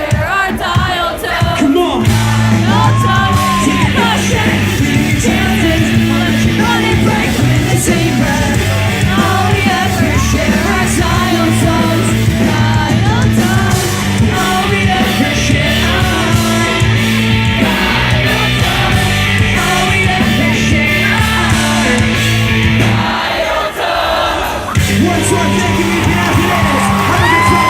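Live pop-punk band playing loud, a singer's voice over electric guitars, bass and drums. The full band comes in about two seconds in after a sparse vocal opening, drops out for a couple of seconds near the end, then comes back in.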